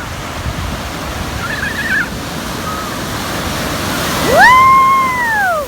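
Ocean surf washing steadily. Near the end comes one long, high squeal that rises sharply, holds, then falls away, and it is the loudest sound.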